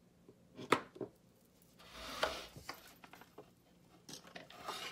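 Quiet handling noise: several light taps and knocks, with a brief rustle about two seconds in, as a hand handles a flat object close to the microphone.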